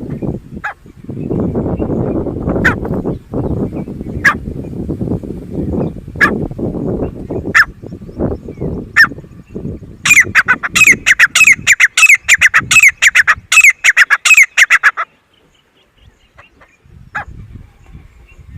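Grey francolin calling. Sharp single notes come about every second and a half over a loud low rushing noise, then about ten seconds in a fast run of loud repeated notes, about five a second, lasts some five seconds and stops abruptly.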